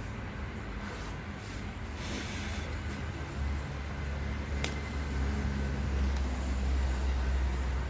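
A steady low mechanical hum that grows louder about three and a half seconds in, with a single sharp click near five seconds.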